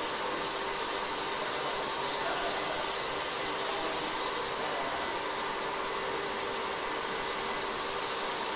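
Steady, even hiss with a faint steady hum underneath, unchanging throughout.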